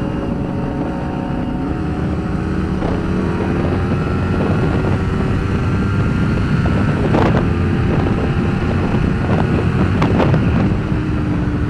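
Kawasaki Ninja 250R parallel-twin engine running at a steady cruise under wind rush, heard from inside the rider's helmet. The engine note climbs slowly, two brief rushes of noise come through about seven and ten seconds in, and the pitch eases down a little near the end.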